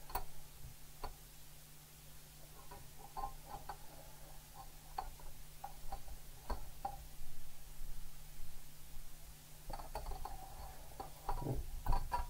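Plastic parts of a Batmobile Tumbler partwork model's right bulkhead being handled and fitted together: scattered light clicks and taps, busier near the end.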